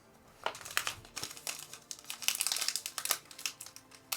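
Plastic trading-card packaging crinkling in the hands as it is handled and opened, a string of irregular, sharp crackles.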